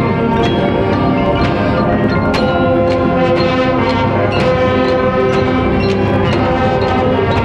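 High school marching band playing its field show: the horns hold sustained chords over frequent percussion strikes and ringing mallet percussion.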